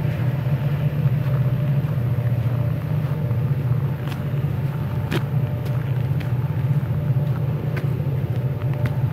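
Diesel locomotives of an ore train working up a steep grade: a steady, low engine drone, with a few short clicks between about four and eight seconds in.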